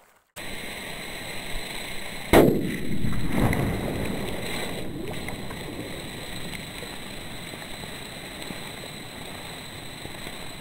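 Sodium metal reacting violently in stream water: a sharp bang about two seconds in, a second burst right after, then a fading rush of fizzing and splashing over the steady noise of the flowing stream.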